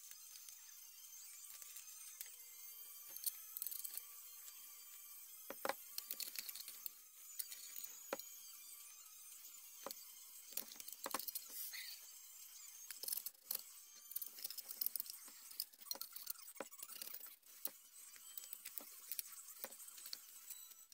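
A brush scrubbing a metal hole punch on a metal work surface: irregular scratchy strokes with many light clicks and taps, over a faint steady hiss.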